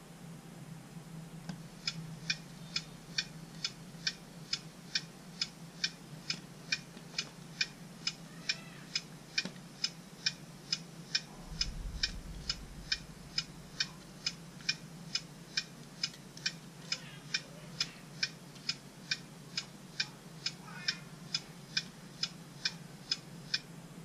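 Turn-signal flasher ticking: sharp, even clicks at about two a second, starting a second and a half in and stopping just before the end.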